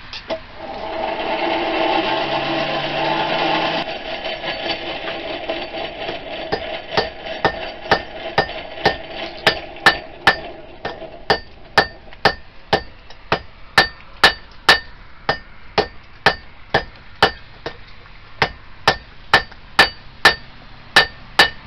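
Hand hammer striking red-hot knife steel held on the edge of an anvil, fullering in the tang: evenly paced ringing blows about two a second, starting a few seconds in. Before them, a loud steady rushing noise that stops abruptly.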